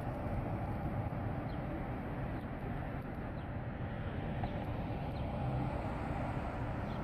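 Steady low rumble of a vehicle driving slowly, heard from inside it, with a few faint high chirps.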